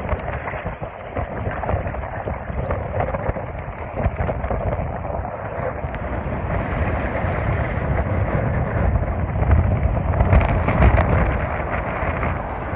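Ocean surf breaking and washing, with wind buffeting the phone's microphone; the low rumble swells louder about ten seconds in.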